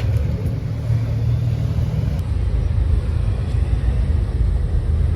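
A loud, low, steady rumble.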